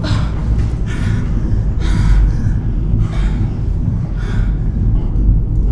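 A person breathing heavily in short gasps, about one a second, over a loud steady low rumble.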